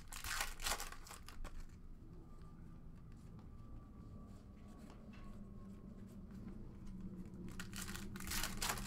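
Foil trading-card pack wrappers torn open by hand with a crinkling rip. It comes once in the first second or so and again near the end, with a quieter stretch between.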